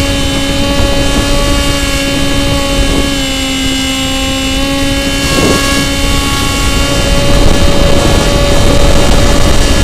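RC airplane's motor and propeller running steadily in flight, a droning tone that shifts a little in pitch with the throttle and grows slightly louder in the last few seconds. It is heard from the plane's own onboard camera, with heavy wind rumble on the microphone.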